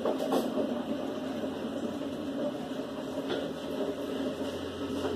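A steady machine hum, with a few light knocks.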